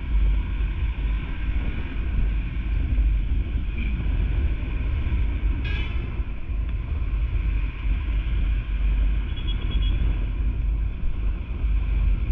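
Motorcycle riding at road speed: the engine's steady running under a heavy low rumble of wind on the microphone. A brief high-pitched sound cuts in about six seconds in.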